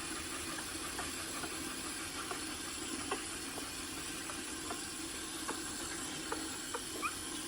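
Water running steadily from a tap, an even hiss, with a few faint clicks over it.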